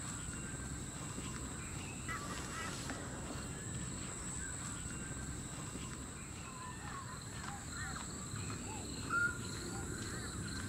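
Outdoor birdsong: scattered short whistled and chirped calls, including curved, falling notes, among them a grey butcherbird calling. A steady high-pitched tone runs underneath.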